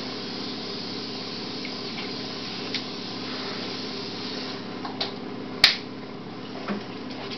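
Steady low hum of room tone with a few light clicks, and one sharp click about five and a half seconds in.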